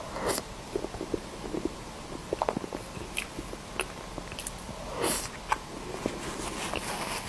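Close-up wet mouth sounds of eating soft cream cake: small lip smacks, sticky clicks and squishy chewing, scattered irregularly, with a couple of brief louder breathy slurps.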